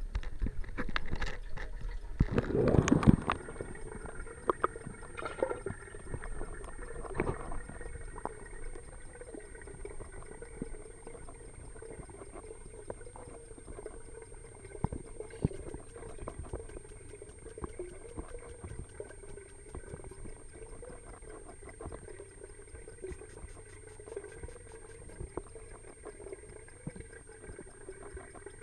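Water trickling and splashing in a fish tank over a steady hum, with scattered small ticks; a louder burst of noise about two to three seconds in.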